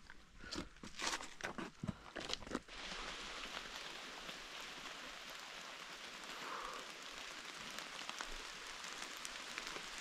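A hiker's footsteps on the trail, about two or three steps a second, stop a little under three seconds in. A steady hiss carries on after them.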